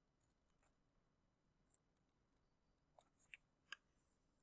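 Faint, scattered snips of scissors cutting paper, with a few slightly louder snips three to four seconds in, against near silence.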